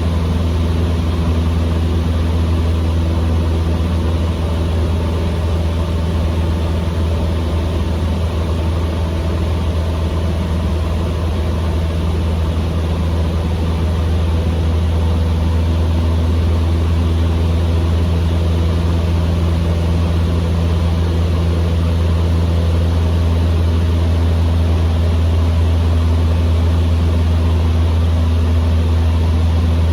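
Cessna 150M Aerobat's Continental O-200 four-cylinder engine and propeller droning steadily in flight, heard inside the cabin.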